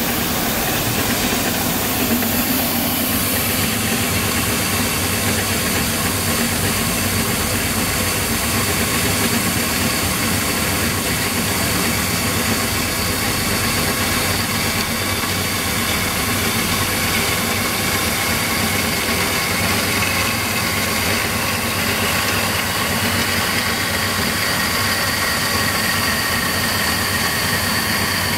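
Johnson horizontal band saw running and cutting through a metal tube: a steady motor hum and blade rasp. In the second half a faint thin whine comes in and slowly rises as the blade sinks deeper into the tube.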